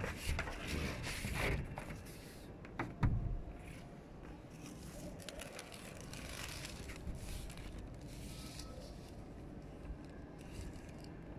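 Foil-faced sealing tape being laid and pressed by hand onto a polycarbonate roof sheet: irregular crinkling and scraping of the foil, with a single knock about three seconds in.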